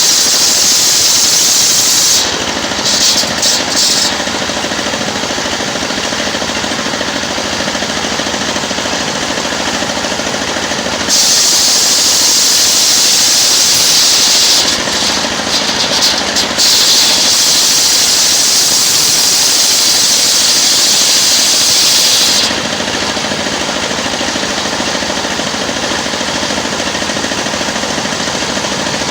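Engine-driven circular sawmill ripping a coconut log: the engine runs steadily, and a loud, high hiss comes in while the blade is in the wood. The hiss comes briefly about two seconds in, then for about eleven seconds from roughly a third of the way through with a short break. Near the end only the engine runs, with the blade free of the wood.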